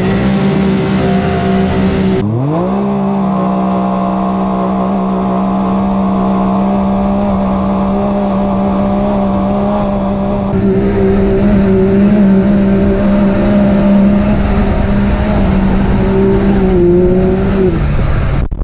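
Can-Am Maverick X3 Turbo's turbocharged three-cylinder engine at full throttle in an uphill drag race on sand. Its pitch climbs for the first couple of seconds, then holds at a steady high pitch under hard acceleration, and falls away near the end as the throttle is lifted.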